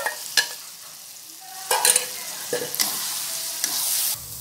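A metal spatula scraping and knocking against a kadhai while a coarse chickpea paste is stirred into masala frying in oil, with sizzling. Two sharp knocks come near the start; from about halfway the scraping and sizzling grow louder, then stop abruptly just before the end.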